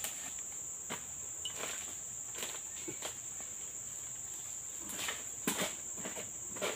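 Steady high-pitched insect drone, with a few scattered faint knocks and rustles that come more often near the end.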